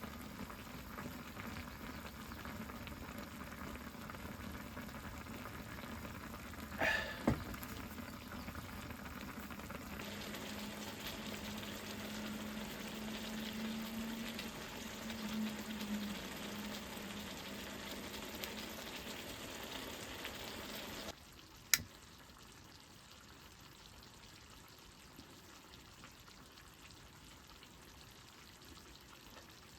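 Steady sizzling of something cooking on the heat, with a brief squeak about a quarter of the way in. About two-thirds through it cuts off abruptly to a quieter background, followed by one sharp click.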